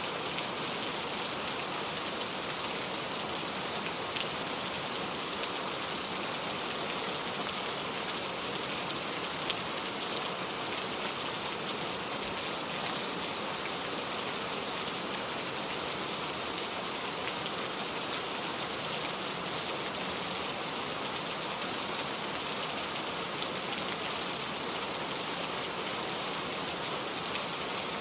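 Steady rain falling, an even hiss with scattered individual drops ticking a little louder now and then.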